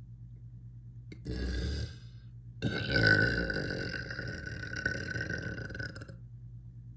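A person burping: a short, rough sound about a second in, then one long, loud burp lasting about three and a half seconds.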